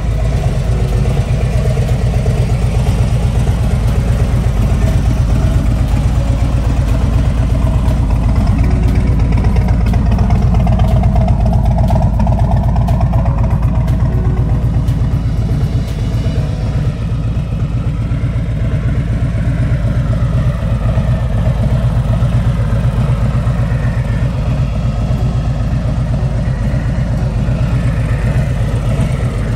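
Harley-Davidson Road Glide 3 trike's V-twin engine idling steadily through its aftermarket Tab Performance exhaust, with music faint underneath.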